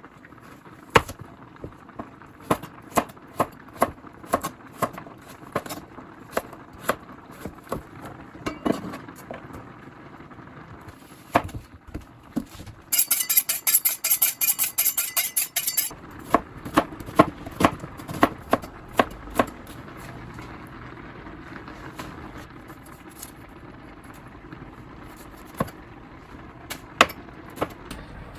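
Knife chopping vegetables on a cutting board: sharp, irregular knocks, one or two a second, with a few seconds of high hiss about halfway through.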